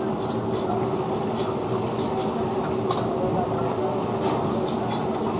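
Steady noise of a busy street-food frying stall, with a constant hum and scattered sharp metallic clicks and clinks, the clearest about three seconds in.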